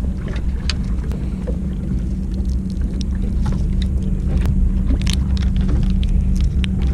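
Fishing boat's engine running steadily with a low hum, with scattered light clicks and rattles from the octopus jig rig being handled.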